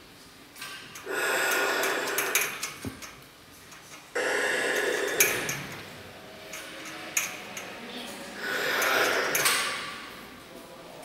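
Three long, loud rushes of breath-like noise, about a second in, about four seconds in and about eight seconds in, each lasting a second or two, with scattered clicks between them.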